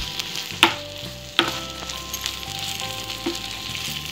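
Kadai paneer gravy sizzling in the kadai as it is stirred, with two sharp clicks about half a second and a second and a half in, likely the spoon knocking against the pan.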